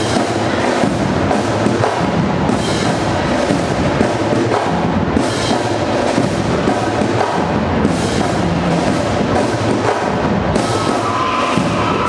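Marching band playing a drum-driven beat, with bass drums and snares under sousaphones and other brass.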